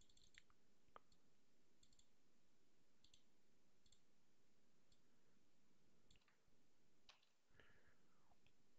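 Near silence with about a dozen faint, irregular clicks of a computer keyboard as an email address is typed out.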